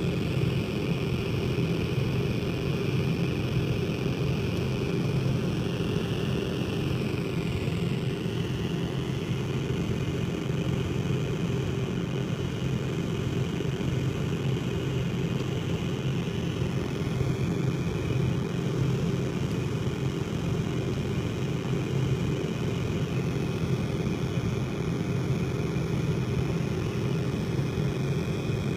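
Casper Electronics Nova Drone, a six-oscillator analog synthesizer, playing a thick, steady low drone with no added effects. A higher, thinner tone rides above it and bends downward in pitch about seven seconds in.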